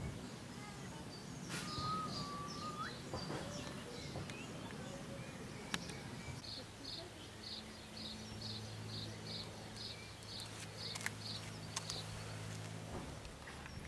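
Outdoor ambience with birds singing: scattered calls, then one bird repeating a short high note about two or three times a second. A low steady hum comes in about halfway.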